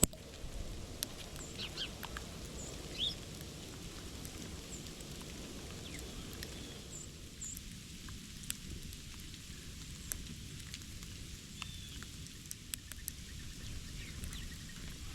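Small birds giving short, high chirps and brief calls, with scattered light ticks and a steady low rumble underneath.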